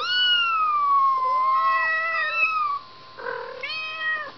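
Kitten meowing: one long falling meow, a second meow overlapping it about a second in, and a shorter meow near the end.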